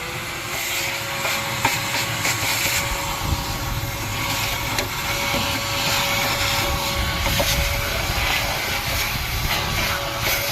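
800-watt ash vacuum running, a steady motor whine over a loud rush of suction, as it pulls ash out of a smoker with scattered ticks and rattles of debris going up the hose.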